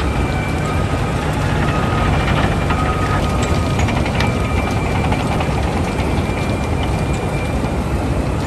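Bucket wheel excavator working: a loud, steady rumble of the machinery with scattered clanks and rattles, and a faint high squeal that comes and goes.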